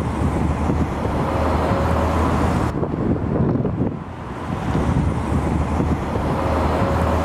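Low rumble of road traffic and wind with a steady low hum, dipping and swelling in the same pattern about every five seconds.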